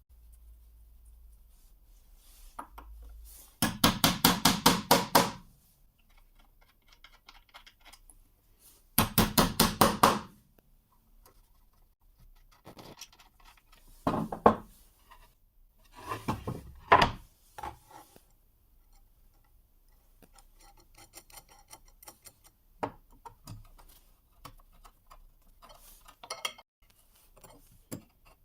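Two bursts of rapid back-and-forth scraping strokes, metal on metal, about six strokes a second, then a few shorter scrapes and scattered light clicks and taps of tools and metal being handled.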